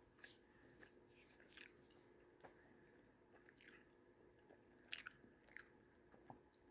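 Faint chewing and crunching of mini beef and cheese tacos, heard as soft scattered crunches with a slightly louder few about five seconds in.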